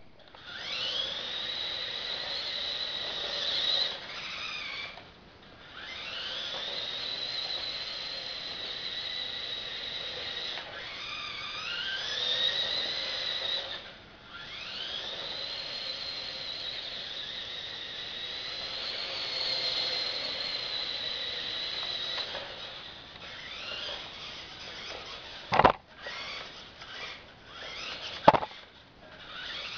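Lego RC buggy motors geared 12-to-24 whining at a high pitch as they drive the truck. The whine runs in several spells, rising in pitch each time the motors spin up and dropping away in short pauses between. Two sharp knocks stand out near the end.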